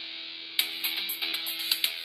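Intro theme music led by guitar, with sharp percussion hits coming in a little over half a second in and keeping a steady beat.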